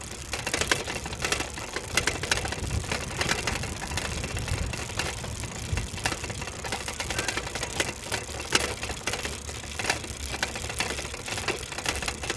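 Irregular clattering and rattling from an electric unicycle and its low camera mount rolling over paving stones, over a low rumble.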